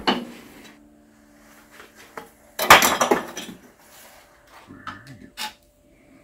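Metal struck against steel with a hammer, the blow ringing on briefly, then a clatter of steel tools and parts set down on the truck's steel frame a couple of seconds later, and a few light metal clinks near the end.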